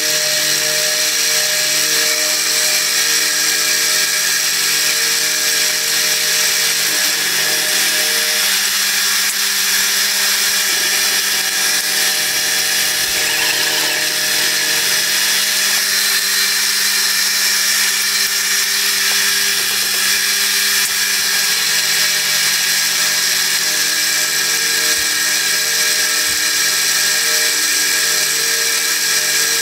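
Milling machine running steadily, its 6 mm four-flute end mill cutting a slot through steel plate from hole to hole.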